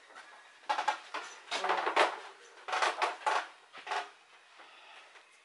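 A series of short, sharp knocks and clatters, about half a dozen, bunched between about one and four seconds in.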